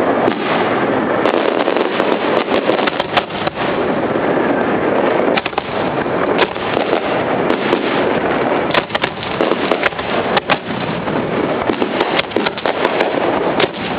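Aerial fireworks heard at close range from the launch barge: a dense, continuous barrage of launches and bursts, with many sharp cracks over a steady rushing noise.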